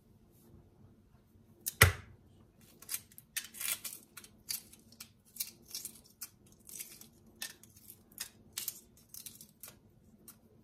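Shell of a hard-boiled egg crackling and snapping in a rapid run of small clicks as it is peeled off by hand, with one sharp knock about two seconds in.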